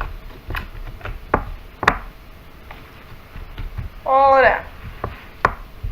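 Scattered sharp clicks and knocks as the magnetic slime and its tin are handled, about seven in all, the loudest about two seconds in.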